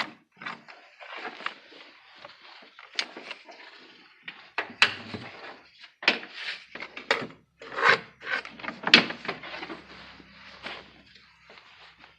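Hand tools and metal parts being handled in an engine bay: irregular scraping and rubbing broken by sharp knocks and clicks.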